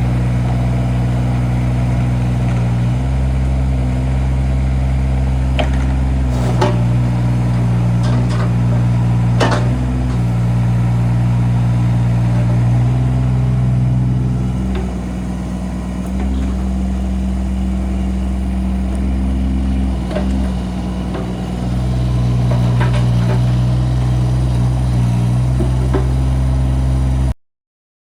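Kubota U17-3 mini excavator's three-cylinder Kubota diesel running steadily, its note shifting several times as the load changes, with a few sharp metallic clanks. The sound cuts off suddenly near the end.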